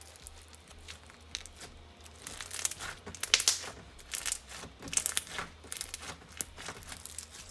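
Clear glue-based slushy slime being squeezed and worked by hand, giving crisp crunches and crackles in quick runs, loudest from about two to five and a half seconds in.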